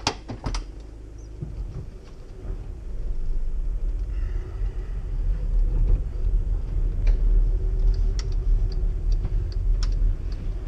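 In the cab of a Volkswagen Caddy van, a couple of sharp clicks as it is put into gear, then the engine pulls away and grows louder as the van picks up speed, with road rumble under it.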